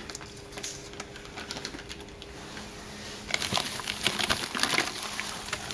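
Plastic shipping bags and packing wrap crinkling and rustling as they are handled, a quick run of sharp crackles starting about three seconds in. Before that only a faint steady hum.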